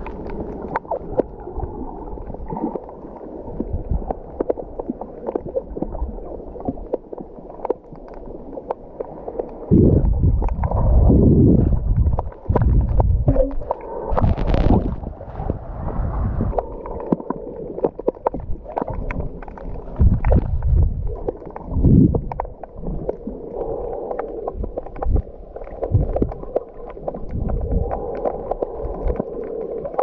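Water heard through a waterproof camera's housing while snorkelling: muffled gurgling and sloshing with many small clicks, and louder low sloshing surges about ten seconds in and again around twenty seconds.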